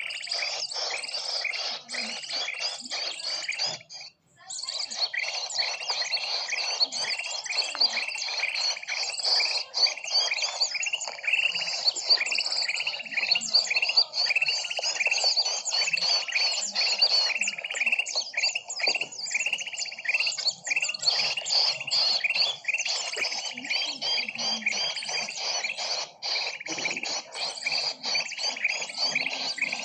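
Bird-lure recording of a dense chorus of many small birds chirping and twittering together, with rapid overlapping chirps. It drops out for about half a second about four seconds in.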